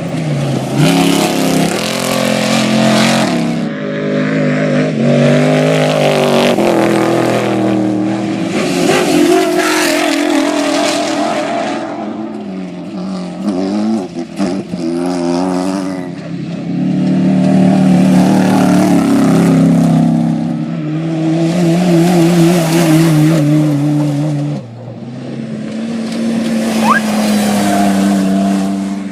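Off-road race vehicle's engine driven hard, its note climbing and falling over and over every few seconds as the throttle opens and lifts, with a rush of broad noise over it.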